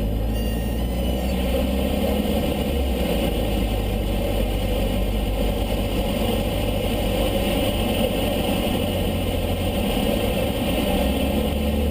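Cessna 152's Lycoming O-235 four-cylinder engine and propeller running steadily in flight, the low drone shifting slightly in pitch a few times.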